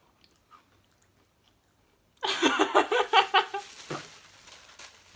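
A man spitting a chewed mouthful of almond biscuit out into a plastic bag. After a near-silent start, a loud burst of wet mouth and spitting noises comes about two seconds in and then fades.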